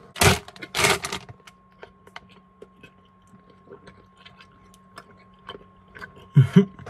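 A person chewing a chewy Airheads taffy candy close to the microphone: scattered small wet mouth clicks, after two loud noisy bursts about half a second apart near the start. A short voiced hum comes near the end.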